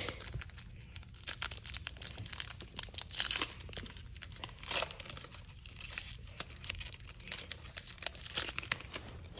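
Wrapper of a Topps baseball card pack crinkling and tearing as it is opened by hand, with irregular crackles throughout and a few louder rips, followed by the cards being handled.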